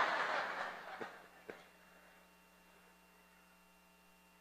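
Audience reaction to a joke, a noisy crowd sound that dies away within about a second and a half. After it there is quiet with a steady electrical hum.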